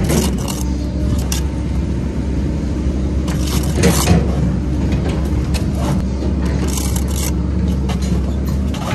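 A steel brick trowel scraping mortar on bricks a few times, the loudest stroke about four seconds in, over a steady low engine hum from site machinery.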